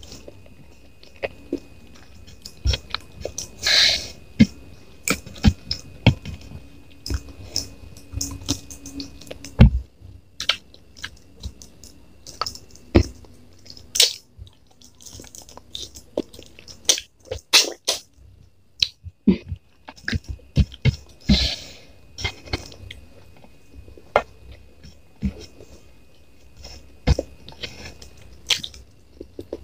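Close-miked mouth sounds of eating fried noodles with rice and chicken: irregular wet chewing, lip smacks and clicks throughout, with two brief louder rushes of noise, about 4 seconds in and about 21 seconds in.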